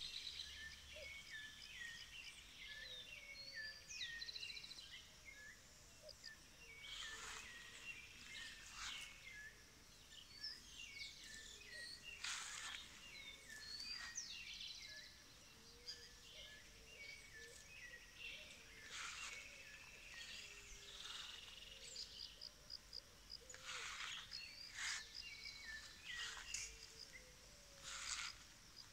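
Faint chorus of many songbirds chirping and whistling in quick repeated notes, with lower wavering calls underneath. About eight short noisy swishes come at intervals.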